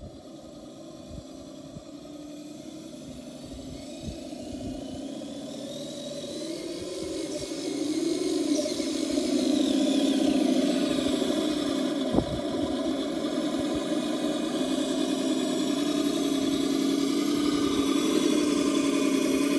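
Simulated truck engine sound from an ESS-DUAL+ sound module's speaker in a Traxxas TRX6 Unimog RC crawler, running steadily and growing louder over the first ten seconds or so as the truck comes close, with one sharp knock about twelve seconds in.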